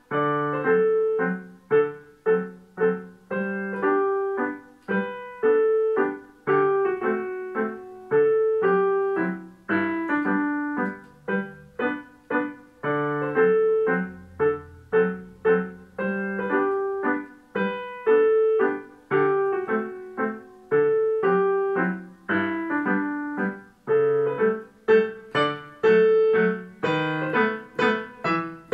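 Yamaha digital piano played with both hands: a continuous stream of piano notes in a regular rhythm, a repeating figure over lower notes.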